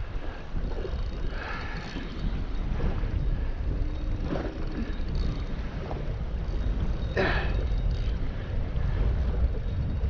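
Wind buffeting the microphone, a steady low rumble, with a few brief rushing sounds over it, the loudest about seven seconds in.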